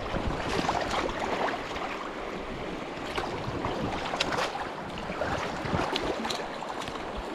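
Shallow stream water rushing over stones and lapping right at the microphone, with many small irregular splashes and trickles.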